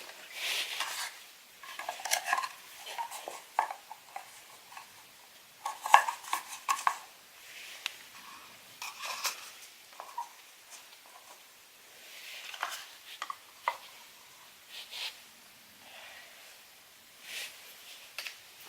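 Small hard plastic toys and their containers being handled, giving irregular light clicks and clattering rattles, busiest in the first several seconds and sparser afterwards.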